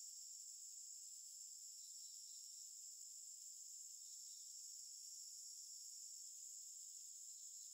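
Faint, steady high-pitched chorus of crickets, unbroken throughout, with nothing lower in pitch beneath it.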